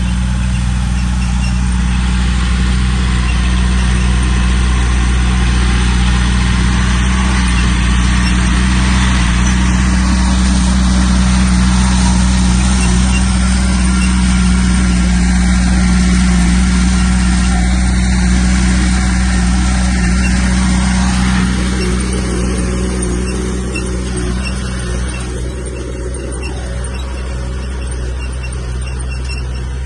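Heavy diesel engine of earthmoving machinery running steadily under load with a deep hum, easing off somewhat about two-thirds of the way through.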